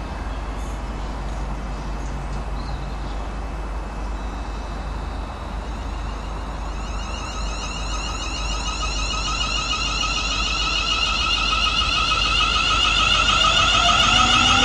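Class 350 Desiro electric multiple unit approaching, its traction equipment whining in several high steady tones that grow louder from about halfway through. Lower motor tones start rising in pitch near the end.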